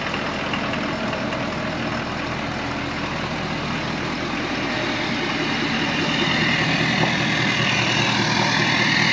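Ford 6.7 Power Stroke V8 turbodiesel, freshly fitted with a new turbocharger, running steadily. About six seconds in it gets louder, and a higher-pitched rushing sound comes up.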